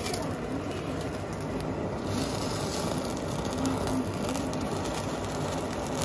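Handheld kitchen blowtorch running with a steady hissing flame, searing the outside of a block of roast beef.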